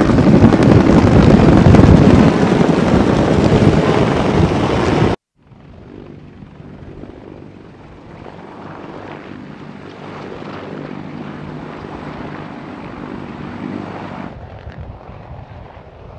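UH-1Y Venom helicopter's rotor and turbine running close by, loud, until a sudden cut about five seconds in; after that, helicopters running further off, much quieter and steady.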